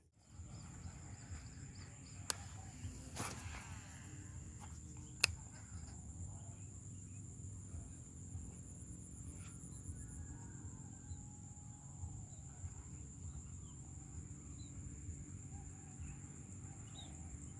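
Insects trilling, a steady high-pitched drone over a faint low rumble, with two sharp clicks a few seconds apart early in the stretch.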